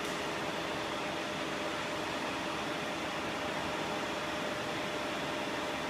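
Steady hiss with a faint, even hum from running machinery, unchanging throughout.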